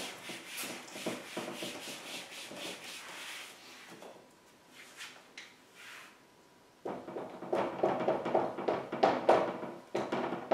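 Whiteboard eraser rubbed back and forth across the board in quick strokes for the first few seconds. After a quieter pause, a dry-erase marker writes on the board in short strokes from about two-thirds of the way in.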